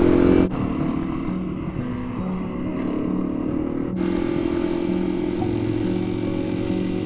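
Honda CRF300 single-cylinder engine running steadily at road speed, heard from the rider's seat. The sound changes abruptly twice where the footage jumps.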